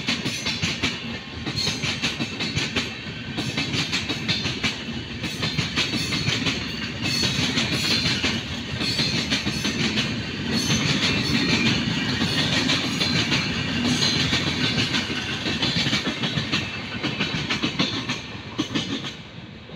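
Indian Railways LHB passenger coaches passing at speed close by: a dense rumble with rapid clicking as the wheels run over the rail joints. It dies down near the end.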